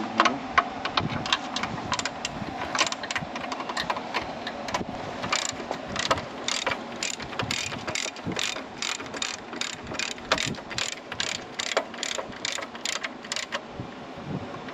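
Socket ratchet wrench clicking as it is swung back and forth on a bolt. The clicks come irregularly at first, then settle into an even run of about three a second from about five seconds in, and stop shortly before the end.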